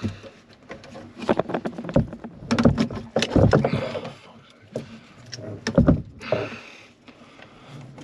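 Irregular knocks and clunks of hands and tools working on metal and wood inside a boat's hull, with several louder thuds about two, three and a half and six seconds in.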